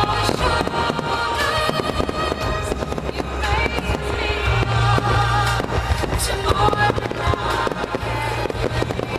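Fireworks going off rapidly in a finale barrage, many bursts and crackles overlapping, over music with a steady low pulse.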